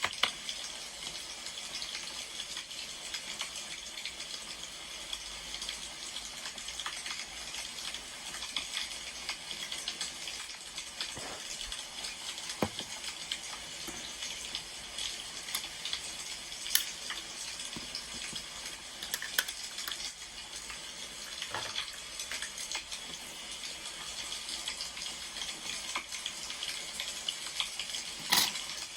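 Wood fire crackling steadily, with scattered sharp pops, the loudest about 17 seconds in and near the end.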